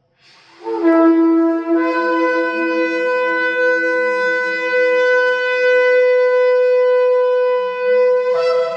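A shofar blown in one long blast: a breathy start on a low note that breaks up to a higher note after about a second, held steady for about six seconds, then jumps higher again near the end.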